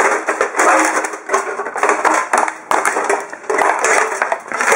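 Repeated rough scraping and rattling, about two bursts a second, from the crumpled sheet-metal top cover of a smashed CD player being handled and scuffed against a concrete floor.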